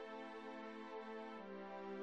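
Soft background music of held, sustained chords, moving to a new chord about a second and a half in.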